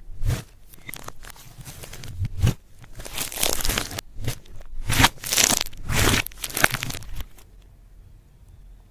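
Close, crisp crunching and crinkling as makeup is crushed and handled for slime: a dense run of irregular crackles and crunches that dies down about seven seconds in.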